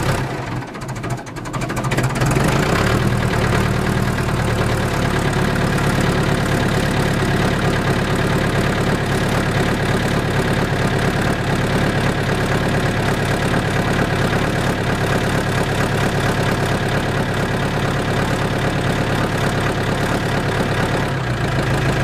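John Deere 450 crawler loader backhoe engine on a cold start near 20 °F without ether: it catches about two seconds in, after a short lull, and then runs steadily.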